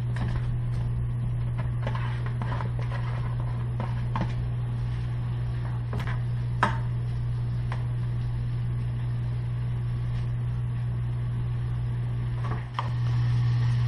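Diced bacon tipped into a hot frying pan of butter and avocado oil and stirred, the spatula clicking against the pan several times. A steady low hum runs underneath and is the loudest sound.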